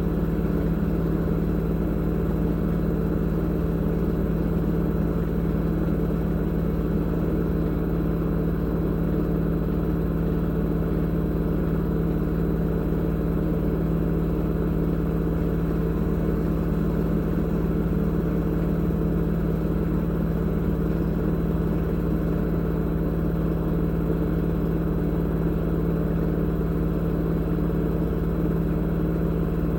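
LG F2DR5S8S6W direct-drive front-loading washing machine running a spin-only cycle at a steady speed: a constant hum made of several steady tones, with no change in pitch or level.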